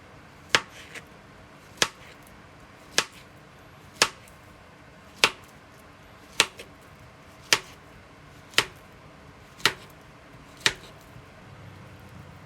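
Ten sharp knocks at an even, unhurried pace, about one a second, stopping shortly before the end.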